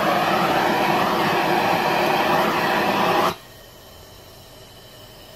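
Handheld propane torch burning with a steady hissing flame, shut off suddenly about three seconds in.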